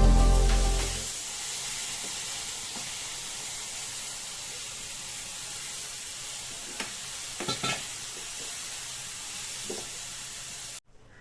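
Chicken curry frying in a pan, a steady sizzle with a few light clicks of a spoon stirring. Background music fades out at the start, and the sizzle cuts off suddenly near the end.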